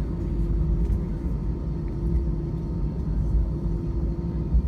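Inside the cabin of an Airbus A319 on the ground before takeoff: a steady low rumble with a constant hum from the jet's engines, uneven as the aircraft rolls along the taxiway.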